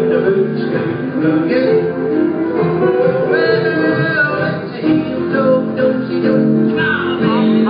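Live acoustic band music with strummed guitar and singing.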